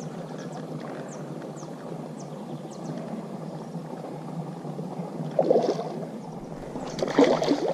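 A hooked matrinxã splashing at the water surface, with two louder splashing bursts in the second half, over a steady watery rush. Small birds chirp throughout.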